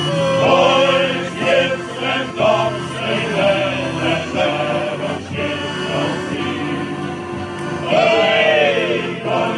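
Male shanty choir singing a sea shanty together, accompanied by accordion, with a loud sung passage near the end.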